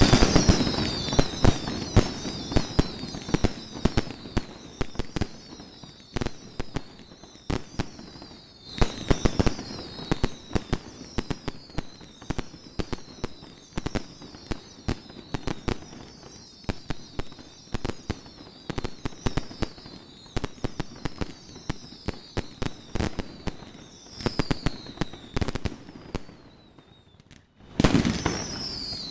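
Fireworks display: rapid bangs and crackling pops from bursting shells, over repeated high whistles that fall in pitch every second or so. A short lull near the end gives way to a fresh volley of bangs.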